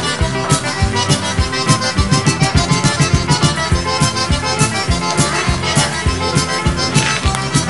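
Music: an accordion playing over a steady beat, with no singing.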